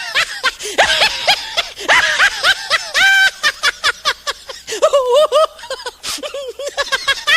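High-pitched laughter sound effect: a voice giggling and snickering in quick short bursts, the pitch bouncing up and down.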